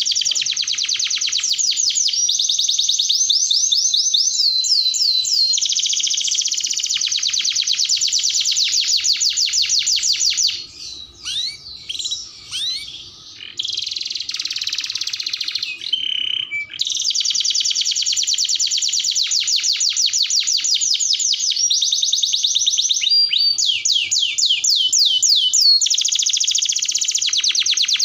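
Domestic canary singing a long, loud song of fast rolling trills, each a rapid run of repeated high notes. About ten seconds in the trills break off into a few scattered chirps before the rolling song resumes.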